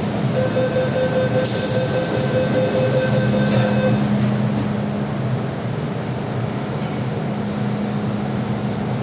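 MTR Tsuen Wan Line M-Train standing at a platform and then pulling away. A rapidly pulsing tone sounds for the first four seconds, with a burst of hiss in the middle of it, and a steady low hum of the train's drive comes in from about three seconds as it sets off.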